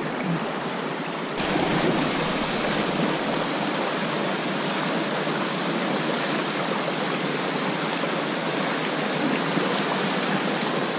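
Mountain brook rushing over a small cascade into a plunge pool, a steady rush of water that gets louder about a second and a half in.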